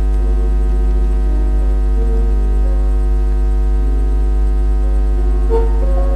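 A steady, loud low hum from the old film soundtrack, with faint background music of soft held notes that change every second or two underneath.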